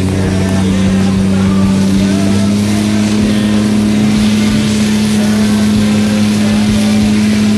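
Portable fire pump's engine running flat out with a loud, steady drone while it drives water through the hose lines. The hiss of the two water jets spraying at the targets builds up about three to four seconds in.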